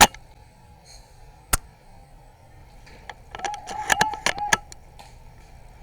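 Airsoft guns firing: a sharp snap right at the start and another about 1.5 seconds in, then a quick string of shots between about 3.3 and 4.6 seconds with a steady high tone under them.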